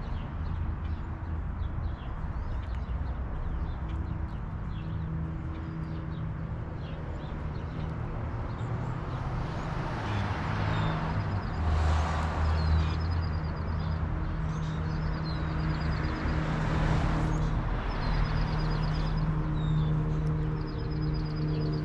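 Backyard ambience: a steady low hum, with vehicles passing, their noise rising and fading twice. Small birds sing short repeated high trills from about halfway through.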